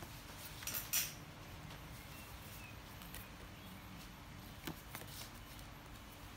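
Paper and card inserts being handled: a few light taps and rustles, the loudest about a second in and another near five seconds, over a faint steady hum.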